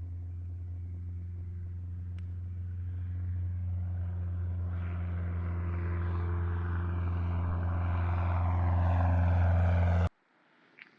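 Small propeller airplane's engine running at a steady pitch, growing louder with a rising rush of noise over the second half, then cut off abruptly about ten seconds in.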